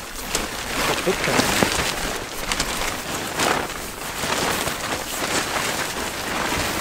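Cheap pop-up tent being opened out and pitched: continuous rustling and crinkling of the tent fabric, with scattered sharp crackles as it is handled.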